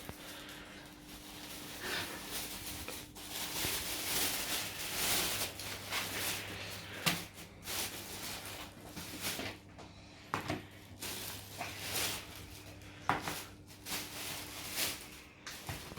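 Scattered clicks, knocks and rustling from objects being handled, over a steady low hum.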